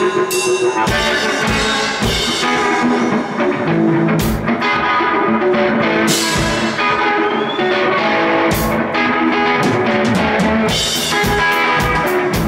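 Live rock music played loudly by a guitar-and-drums duo: electric guitar over a steadily beating drum kit.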